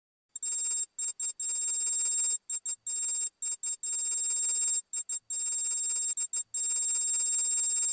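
Text-appear sound effect: a steady, high-pitched electronic tone that starts about half a second in and runs on, cut by many short gaps as the on-screen caption lettering appears.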